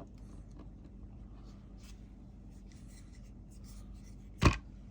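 Faint rubbing and handling of a folding knife while it is weighed on a small scale, then one sharp knock near the end as it is set down.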